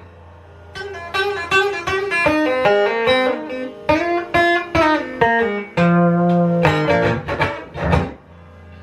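Electric guitar played through an amplifier: a run of single picked notes, then a few strummed chords about six seconds in, with a low steady hum in the pauses at the start and end.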